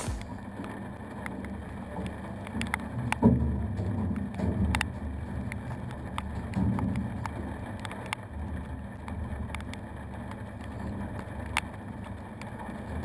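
Low, steady rumble of wind on the camera microphone and sea around a fishing boat, with scattered light clicks and a sharper knock about three seconds in.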